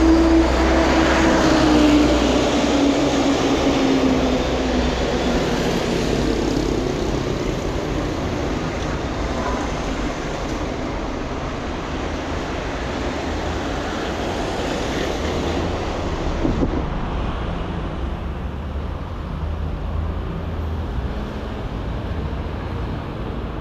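Motor vehicle running in city traffic, a steady low rumble with road noise; an engine tone drops in pitch over the first few seconds as the vehicle slows.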